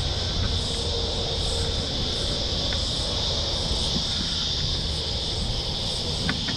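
Wind rumbling on the microphone while riding a bicycle, over a steady high-pitched drone of insects in the roadside bush.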